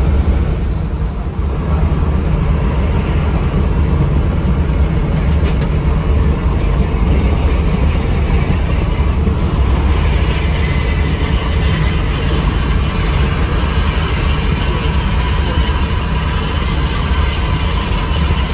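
Cabin noise of a Mercedes-Benz 1626 coach under way at highway speed: a steady low rumble of its diesel engine and tyres on the road, dipping briefly about a second and a half in.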